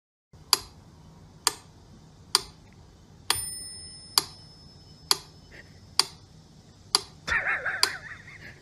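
Regular sharp ticks, about one a second, like a clock ticking, with a ringing bell-like ding after one of the ticks about a third of the way in. Near the end a short wavering cry sounds over the ticking.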